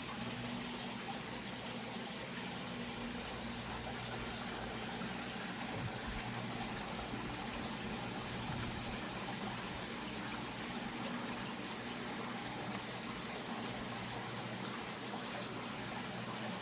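Steady running and trickling water of a small garden creek, with a low steady hum beneath it.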